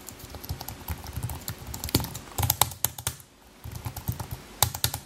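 Keys on the lower rows of an Apple aluminium wireless keyboard tapped rapidly, many quick key clicks with a short pause about three seconds in. These keys are mushy, which the owner believes is from liquid damage.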